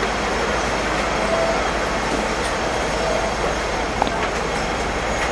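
Steady rumble and low hum aboard a Hong Kong double-decker electric tram, with road traffic going by. There is a single sharp click about four seconds in.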